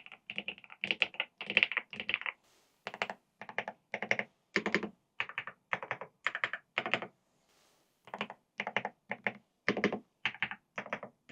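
Typing on an EPOMAKER TH99 mechanical keyboard: keystrokes in quick short bursts, about two a second, with brief pauses about two and a half seconds in and again near eight seconds.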